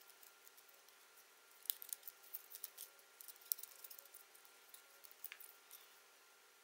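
Light clicks and ticks of a coiled plastic charging cable and its connectors being handled and uncoiled, scattered irregularly and loudest about two and three and a half seconds in, over a faint steady hum.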